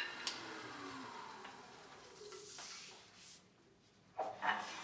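A wood lathe switched off with a click: its motor whine falls in pitch as the lathe and bowl blank coast down, and the running hiss fades away. A couple of short handling sounds come near the end.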